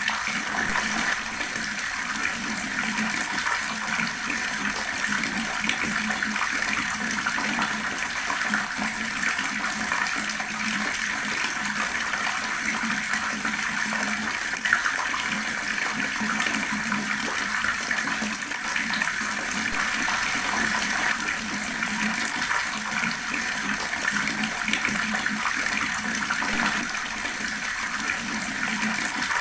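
Water running steadily from an outdoor tap, gurgling and splashing without a break. A single brief click about halfway through is the loudest moment.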